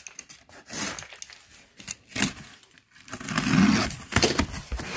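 A cardboard box being opened and its packed contents handled: scattered rustling, crinkling and light knocks, busiest about three to four seconds in.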